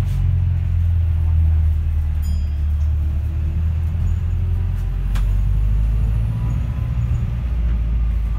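Cabin rumble of a Volvo B5LH hybrid double-decker bus on the move: a loud, steady low drone with a faint whine that glides up and down. A sharp click comes about five seconds in.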